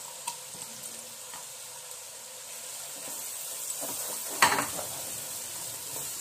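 Chopped onions sizzling in hot oil in a pan, stirred with a wooden spoon as they fry toward light golden brown. A sharp knock about four and a half seconds in.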